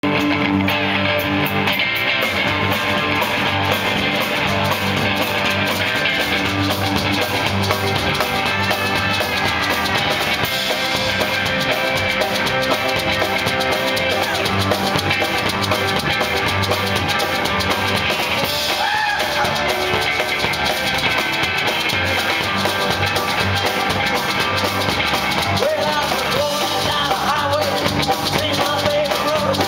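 Rock and roll band playing live: electric guitar, keyboard and drum kit with a steady beat, with a singer's voice coming in near the end.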